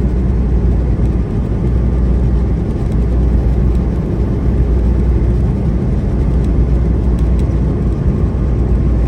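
Semi-truck driving at highway speed: a steady low rumble of engine and road noise that holds even throughout.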